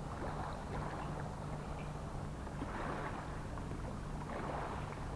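Seaside ambience: waves washing in and swelling against the shore every second or two over a steady low hum, with some wind on the microphone.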